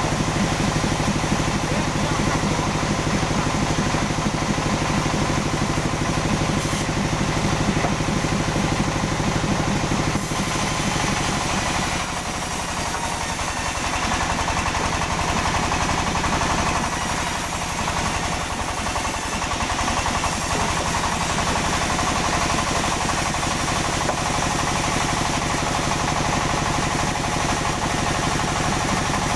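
Sawmill machinery running steadily with a continuous engine sound, its tone shifting about ten seconds in.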